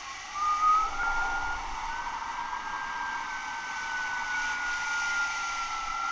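Wind whistling: a single thin, wavering whistle that slowly drifts up and down in pitch over a steady rush of wind.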